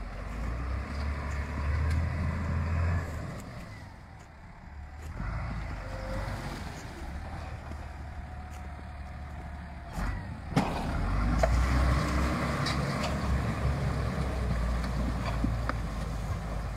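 Valtra 8550 tractor's diesel engine running as it hauls a trailer piled with branches; the engine eases off about four seconds in and works harder again from about eleven seconds, with a single sharp knock just before.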